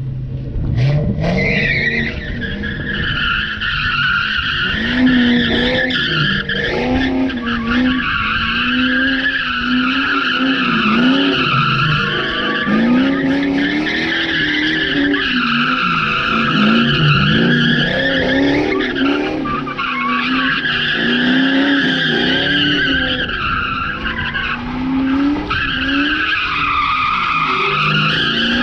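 Three-valve 4.6 V8 Ford Mustang GT doing donuts: the tires squeal continuously with a pitch that wavers up and down, over the engine revving as the throttle rises and falls.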